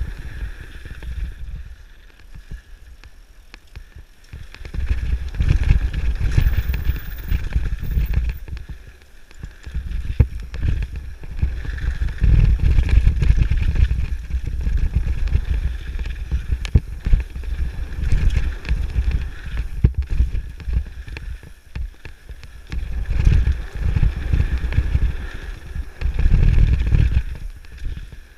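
Mountain bike descending a dirt and gravel trail at speed: tyres crunch over the loose surface and the bike rattles with frequent small knocks. Wind rumbles on the microphone in surges, louder at some moments than others.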